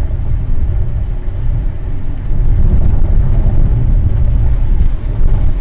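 Cabin noise of a moving car: a steady low rumble of engine and tyres on the road.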